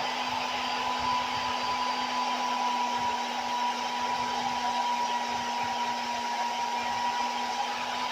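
Hair dryer blowing steadily, a constant rushing hiss with a steady hum.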